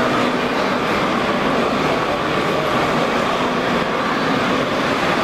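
Steady, even background noise of a busy exhibition hall, with faint voices mixed in and no single event standing out.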